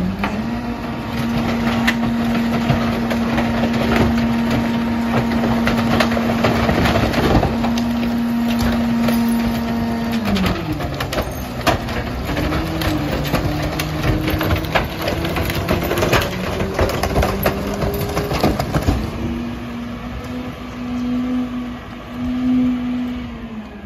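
Mack LR garbage truck's engine running at raised revs while the Heil 5000 rear-loader packer cycles, with repeated clanks and knocks from the hopper. About ten seconds in the revs drop; the truck then pulls away, its engine pitch rising slowly as it accelerates, then levelling and falling near the end.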